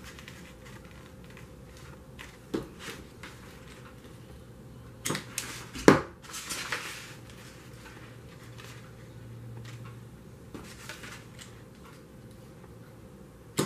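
Stiff cardstock paper petals rustling and tapping against a tabletop as they are moved into place and pressed down, with scattered light clicks and one sharper knock about six seconds in.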